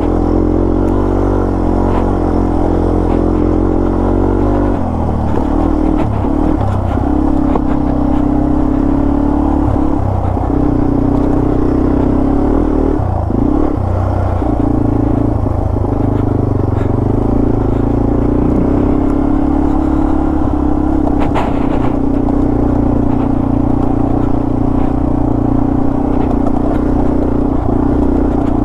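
Yamaha TW200's single-cylinder four-stroke engine running under way, its note changing about five seconds in, then dipping and recovering several times with throttle changes before holding steady.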